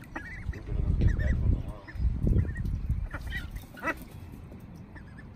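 Domestic ducks calling in short, scattered quacks, with a low rumble about one and two seconds in.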